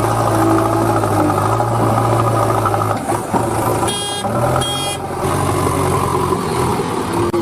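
Engine idling sound of a toy backhoe loader: a steady hum that shifts about three seconds in, with two short high-pitched beeps a little after.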